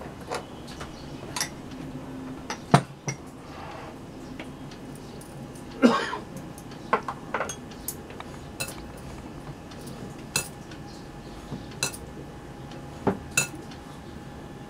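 About a dozen irregular, sharp clinks as bangles and hands knock against a glass mixing bowl while dry gram-flour mix is worked by hand.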